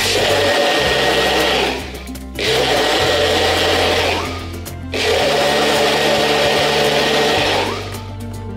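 Personal blender motor run in three pulses of about two to three seconds each, with short breaks between, churning a watery mixture in its cup. Background music plays underneath.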